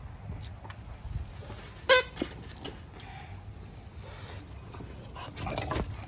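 Bulldog puppy giving one short, high yelp about two seconds in, with smaller scuffling and clicking sounds of puppies playing and a brief rougher noise near the end.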